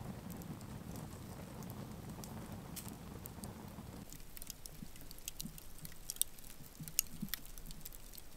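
Wood fire crackling in a metal fire ring, with scattered sharp pops. For the first few seconds the flames give a low steady rush under the pops; after that the fire is quieter, only the pops and snaps of burning wood and embers.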